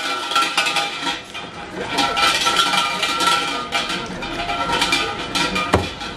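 Shinto shrine suzu bell jangling as its thick hanging rope is shaken, in about three rattling bouts with a ringing metallic tone.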